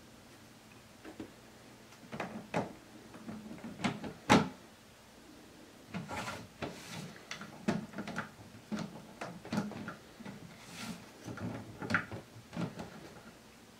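A cat's paws and claws working at the plastic screw-top lid of a Gamma2 Vittles Vault pet food container: an irregular string of clicks, taps and short scrapes on hard plastic, with the loudest knock about four seconds in.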